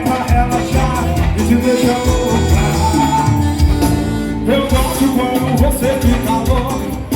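Loud Brazilian carnival music with singing over a pulsing bass beat.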